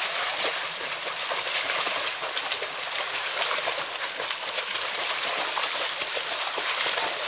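Children's flutter kicks splashing in a swimming pool as they kick along on kickboards: a steady, continuous churning and spattering of water.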